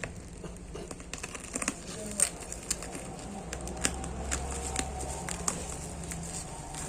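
A parcel being handled and opened: scattered sharp clicks and rustles of packaging.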